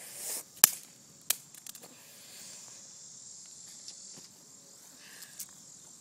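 A small plastic piece of a broken-up cell phone hits concrete with a sharp click, bounces with a second click and skitters briefly. Insects trill steadily in the background.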